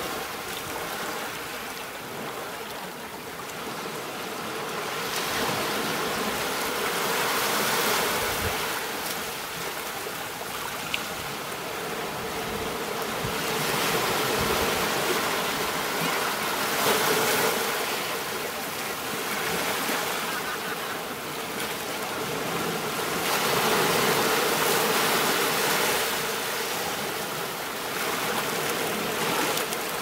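Ocean waves breaking and washing up a beach: a steady rushing surf that swells and eases every several seconds.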